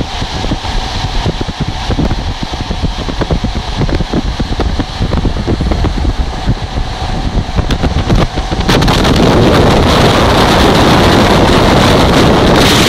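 Wind rushing and buffeting the microphone held out of a fast-moving express train's open window, mixed with the train's running noise. About eight and a half seconds in it abruptly becomes a much louder, even rush of wind.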